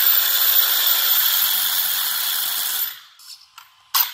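RC burnout car's electric motor and geartrain running at throttle with a steady high whine and gear noise, cutting off about three seconds in, followed by a few short clicks. The owner says it is not hitting full speed, running at about half power, and suspects the ESC setup.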